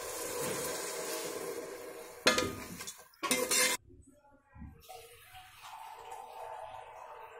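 Coconut milk being poured into a metal pot of rice, then a spatula knocking once against the pot and scraping through the rice and liquid about three seconds in.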